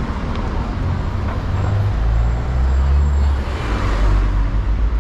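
Busy road traffic passing close, with a vehicle's low engine rumble swelling about two seconds in and easing near the end.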